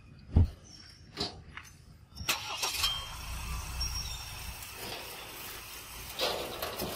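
A few sharp clicks and a low thump, then from about two seconds in a steady motor-vehicle engine rumble with hiss.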